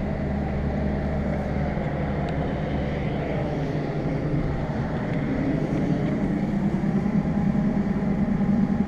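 Steady low mechanical hum with a constant droning pitch, growing slightly louder in the second half.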